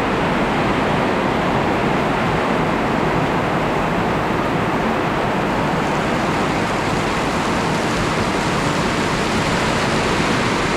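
Heavy wind-driven rain in a high wind, a steady loud rush without let-up.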